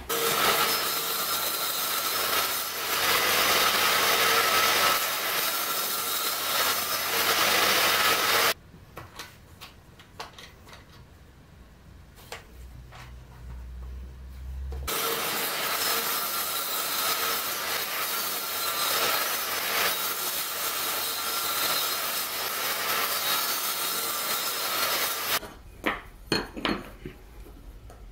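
Saw cutting wood, a steady grinding hiss in two long stretches that start and stop abruptly. Between and after them come a few light clicks and knocks.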